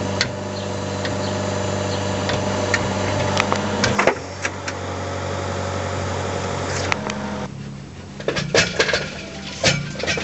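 Hydraulic static pipe-bursting rig (Hammerhead PB30) and its power unit running steadily, a constant mechanical hum as it pulls the bursting head through the old concrete sewer pipe. It drops off later, and a few sharp knocks follow near the end.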